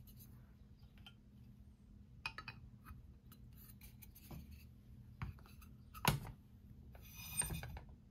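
Small clicks and taps of a 1:200 diecast model airliner being fitted onto its display stand, with a sharper click about six seconds in and a short scraping rattle near the end.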